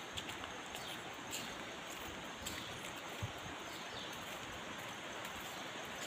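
Footsteps on a dirt forest path, a few scattered soft steps and clicks, over a steady hiss of forest ambience such as flowing water, with faint bird or insect chirps.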